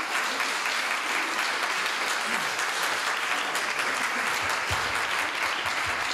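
An audience applauding steadily in a large hall, a dense sustained clapping.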